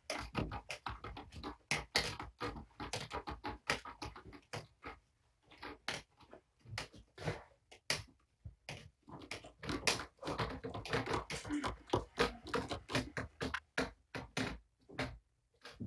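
A busy, irregular run of short clicks, taps and rustles from handling and movement, with a few brief pauses.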